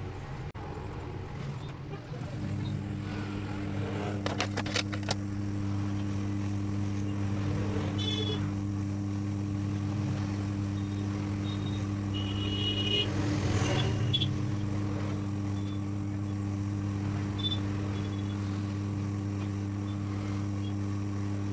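SMD hot-air rework station blowing with a steady hum that sets in about two seconds in. It is heating a phone's audio IC to reflow solder joints suspected of having gone dry from a drop. A few clicks and short high beeps come over the hum.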